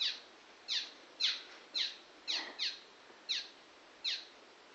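Fledgling swallows calling: short, high chirps that slide downward, about eight of them at uneven intervals of roughly half a second.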